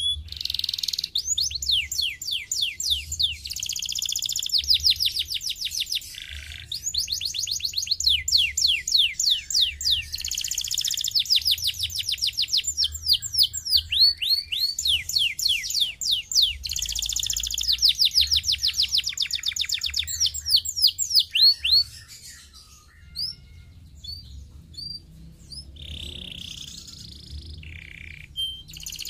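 Canary singing a long song of fast trills, each a rapid run of falling notes repeated many times a second. After about twenty seconds the song thins to scattered single chirps, and fast trills start again near the end.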